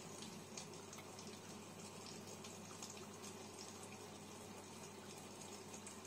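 Cookology CMDW2 tabletop dishwasher rinsing: water spraying against the dishes and the inside of the door with a faint, even hiss. A steady low hum from its pump runs underneath.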